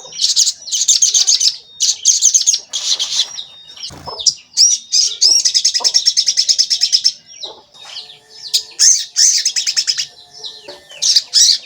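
A sogon songbird singing in rapid, high "cuit cuit" trills: fast strings of sharp notes repeated in bursts of about a second, with brief pauses and single chirps between them.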